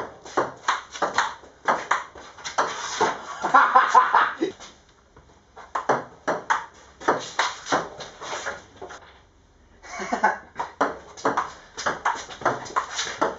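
Table tennis ball clicking quickly back and forth off bats and table in a fast rally, in three runs broken by short pauses about five and nine seconds in.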